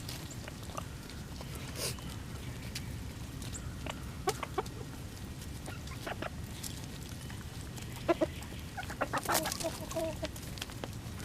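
Chickens clucking in short, scattered calls, most of them close together about eight to ten seconds in, over a steady low rumble.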